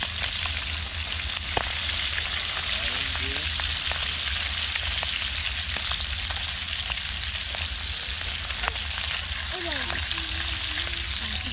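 Food frying in hot oil in a pan over a wood campfire: a steady sizzle with occasional sharp pops.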